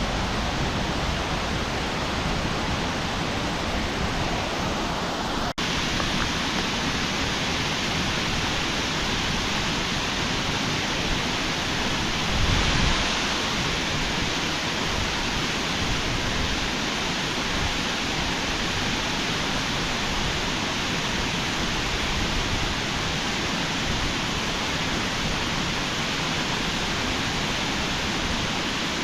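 Waterfall in heavy flow, water gushing over the top, making a steady, even rushing noise. A split-second dropout breaks it about five seconds in.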